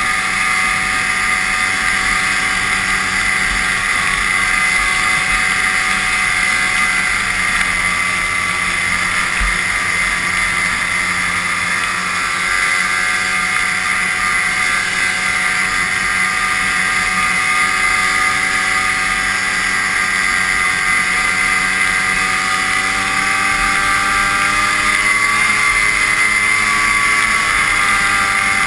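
Vintage two-stroke snowmobile engine running at a steady cruising speed, heard from the rider's seat; its pitch dips and rises a little near the end, with occasional low wind buffets on the microphone.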